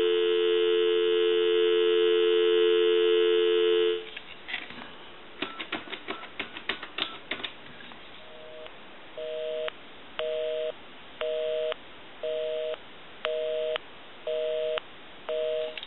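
Telephone line tones through an Empress touch-tone desk telephone: a steady dial tone for about four seconds, then a quick run of short clicks and tones as a number is keyed in on the touch-tone keypad. From about eight seconds in comes a busy signal, a two-note tone pulsing on and off about once a second, because the number called is engaged.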